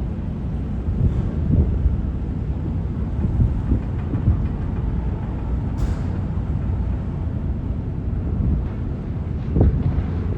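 Steady low rumble of a moving vehicle, with a brief high click about six seconds in.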